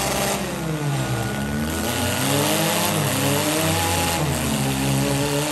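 Demolition-derby engines revving hard under load as a pickup truck pushes against a minivan in the mud, the pitch rising and falling repeatedly, with more than one engine heard at once.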